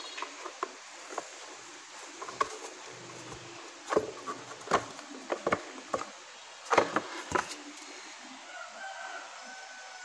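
Hardboard base plate of an old electric fan being handled against the fan's plastic base: a scattered series of sharp knocks and clicks, thickest and loudest in the middle seconds.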